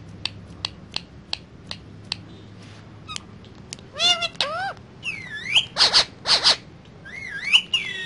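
A run of sharp clicks, about three a second, then an Indian ringneck parakeet's whistled chirps that swoop up and down, with a few short, harsh calls in the second half.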